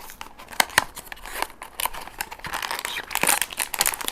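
Blind-box packaging being opened by hand: two sharp snaps, then a long run of crinkling and tearing of the wrapping.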